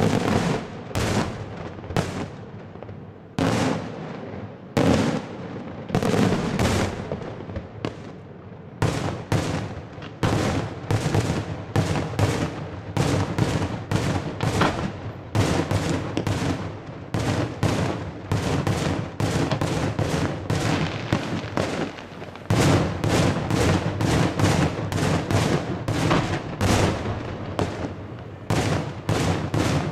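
Daytime fireworks: aerial shells bursting in sharp bangs, a few scattered ones at first, then a rapid, almost unbroken barrage from about nine seconds in that grows denser in the last third.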